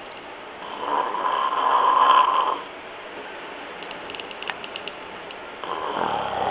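A man snoring heavily: one long snore of about two seconds, then a few faint clicks, and the next snore starting near the end.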